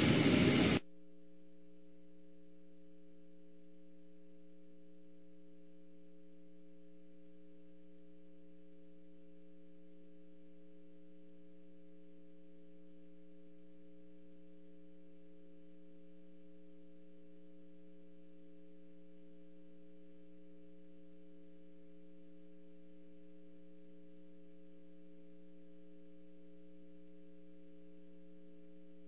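Steady electrical mains hum of several constant low tones, with no other sound. Car-interior sound cuts off abruptly under a second in, leaving only the hum.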